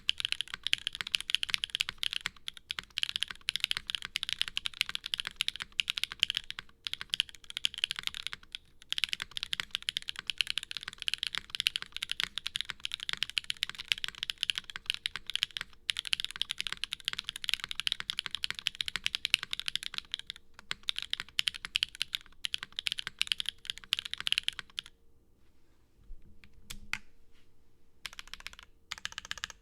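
Fast, continuous typing on an Acrylic Frog Mini mechanical keyboard with stock Gateron Pure Berry switches on an aluminium plate and GMK Striker keycaps, clacking in quick strings. The typing stops for a few seconds near the end, then starts again. A faint steady hum lies underneath.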